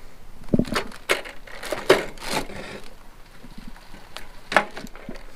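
Handling noise as a dial kitchen scale is pressed against a bicycle pedal to push the generator's crank round: irregular clicks, knocks and crinkly rustling, heaviest in the first half.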